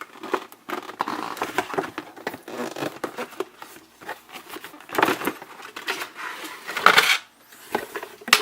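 Cardboard game box and its packaging being handled and opened: irregular rustling, scraping and small knocks, with louder rustles about five and seven seconds in.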